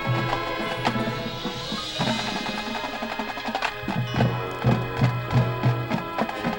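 High school marching band playing, with held notes over busy percussion and sharp knocking hits. A low note repeats in short pulses in the second half.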